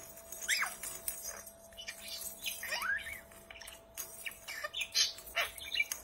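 Budgerigar chirping: a few short, irregular calls that sweep up and down in pitch.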